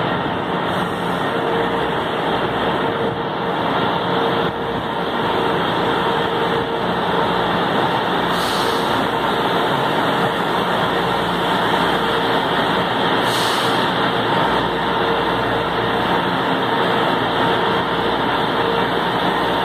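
Metro train running through an underground station: a loud, steady rumble of wheels on rails, with a steady hum underneath.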